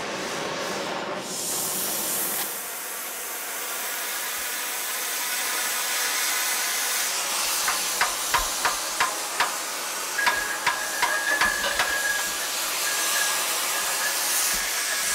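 Oxy-fuel cutting torch hissing steadily as it cuts steel. About halfway through comes a quick run of sharp metallic knocks, then a thin steady whistle joins the hiss.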